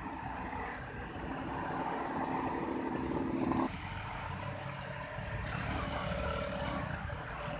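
Motor vehicles running, with a steady held tone over a low rumble that cuts off suddenly just past halfway.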